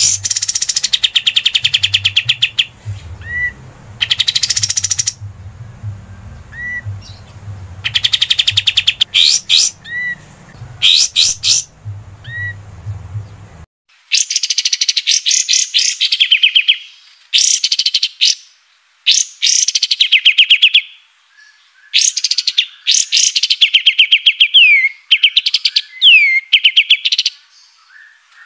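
Kapas tembak singing: repeated phrases of fast, rattling trills that sweep downward, with short hooked whistles between them. A low background hum under the song cuts out about halfway, where one recording gives way to the next.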